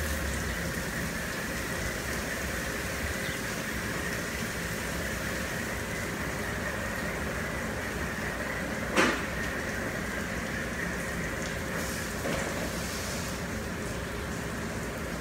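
Oasis XP in-bay automatic car wash running around a vehicle: a steady hiss of water spray and machinery with a faint high whine. A single sharp knock about nine seconds in.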